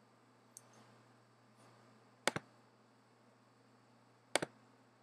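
Computer mouse clicks: two quick double clicks about two seconds apart, over a faint steady low hum.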